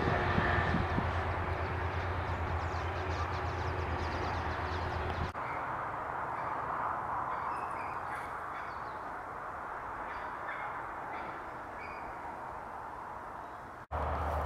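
Outdoor ambience: a steady rushing hiss with wind rumbling on the microphone, and scattered short bird calls, crow-like caws among them. The sound breaks off abruptly twice, about five seconds in and near the end.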